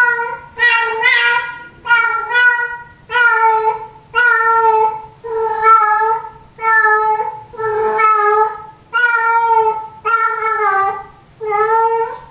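Female cat in heat calling for a tom: a steady series of loud, drawn-out meows, about one a second, each held for under a second.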